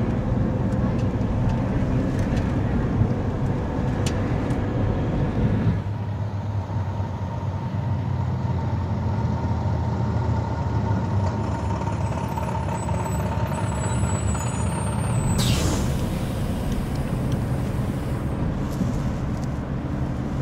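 Bus engine rumbling steadily, first heard from inside the cabin, then a bus running in a terminal; about fifteen seconds in, a sudden hiss of air brakes.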